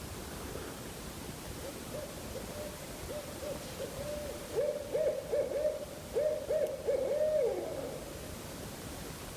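Owl hooting: a rhythmic string of hoots that builds to its loudest in the second half and ends with a falling hoot, over a steady outdoor hiss.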